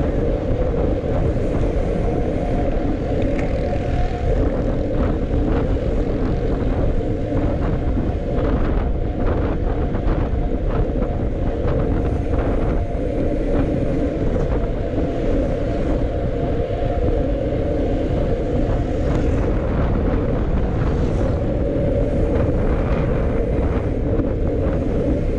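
Steady wind rumble on the microphone of a camera riding along on a moving bicycle, with road noise and scattered light ticks over it.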